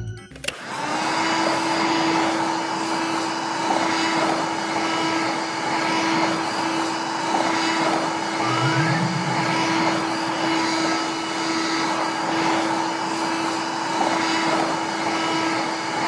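Toy vacuum cleaner switched on with a click of its button, then its small motor and fan running with a steady whirring hum.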